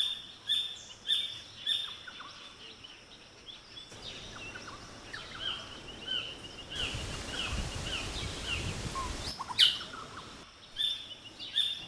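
Rainforest birdsong: several birds chirping and calling, with a run of short repeated notes at the start and again near the end. In the middle, a few seconds of rushing noise with a low rumble.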